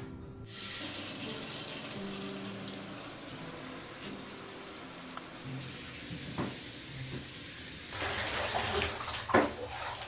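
Shower turned on about half a second in, its water spraying steadily; near the end the spray sounds rougher, with a couple of sharp knocks.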